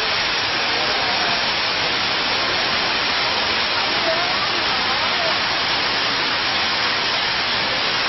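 Water curtain fountain: many thin streams of water falling steadily from a high ledge and splashing into a shallow pool, a continuous even rush of water.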